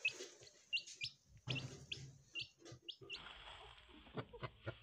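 A young chicken chick peeping: a quick series of short, high calls, each sliding upward. About three seconds in the peeps stop and give way to faint knocks and scratching.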